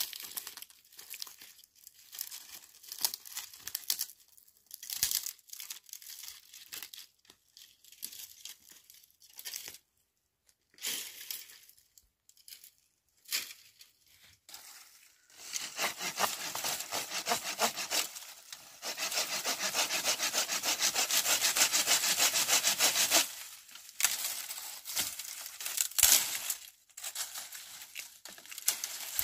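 Dry wooden branches crackling and snapping as they are broken and handled. About halfway through, a hand saw rasps steadily through a branch for roughly eight seconds, the loudest part, followed by a few more snaps.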